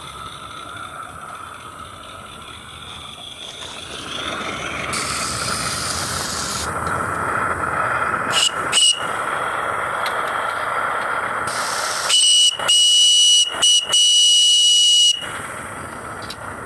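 PM Research steam whistle on a Roundhouse Sammy 45 mm live-steam locomotive, blown over a steady hiss. It gives two short toots on one high, steady pitch around the middle, then four louder blasts near the end, the last about a second long.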